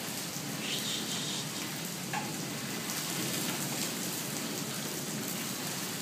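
Steady rain falling on wet brick paving, an even hiss of drops hitting the ground.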